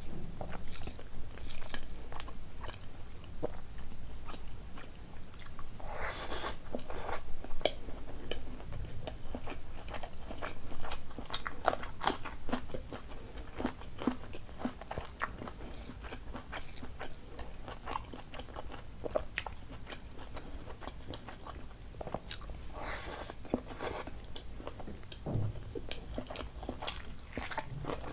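A person chewing and biting food close to the microphone: many short, sharp mouth clicks, with occasional crunches.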